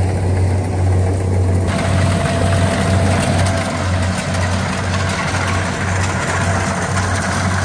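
Rice combine harvester's engine running, a steady low pulsing hum, with a broad hiss over it that grows louder about two seconds in.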